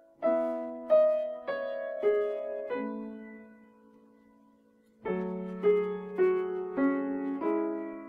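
Soft background piano music: a slow phrase of five single notes, a pause of about two seconds, then another phrase of five notes.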